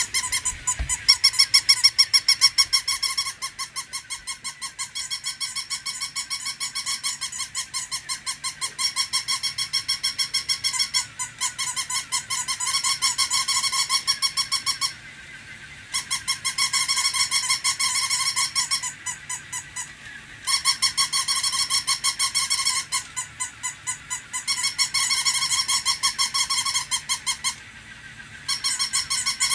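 Battery-operated toy puppy's electronic bark: a rapid, high-pitched squeaky yapping that goes on and on, breaking off briefly a few times.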